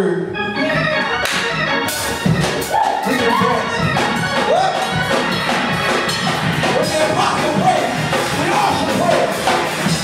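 Electric organ playing gospel music, backed by a drum kit with cymbals.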